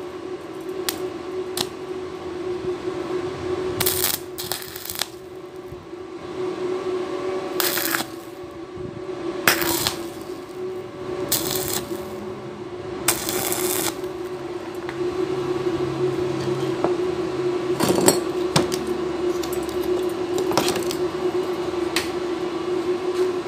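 Stick-welding arc crackling and spitting as an electrode is run along a joint in thin 1.5 mm steel square tube, laid in short stop-start runs so as not to burn through the thin wall. A steady hum runs beneath.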